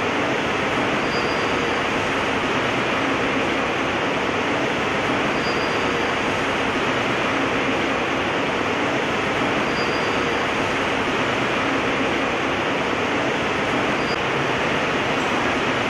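Fully automatic foil transfer machine running, a steady even mechanical noise, with a faint short high tone repeating about every four seconds.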